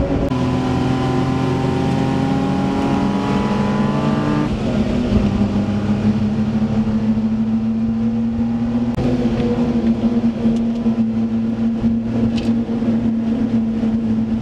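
Daihatsu Hijet mini truck's 660cc three-cylinder engine heard from inside the cab under way: revs climb steadily for about four and a half seconds, drop sharply at a gear change, then hold steady at cruising speed.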